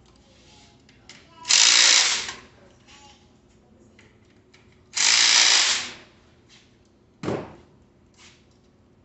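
Cordless drill/driver run in two bursts of about a second each, then a brief third burst that winds down in pitch.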